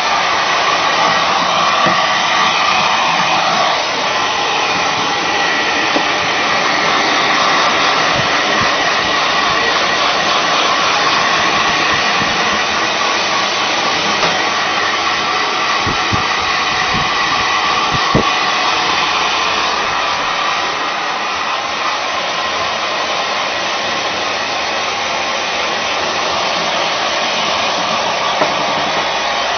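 Steady rushing air and motor of an electric blower appliance running without a break, with a few brief knocks in the middle.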